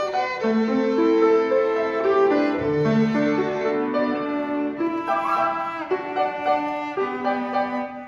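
A small student string ensemble playing a slow melodic piece: violins and viola bowing sustained notes, with a lower bowed part joining about two and a half seconds in.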